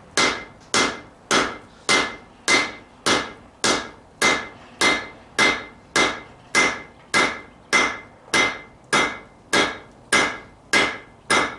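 Blacksmith's hand hammer striking hot steel on an anvil in a steady run of about twenty evenly spaced blows, a little over half a second apart, each with a short metallic ring. The bar is turned between blows to draw it out to a point.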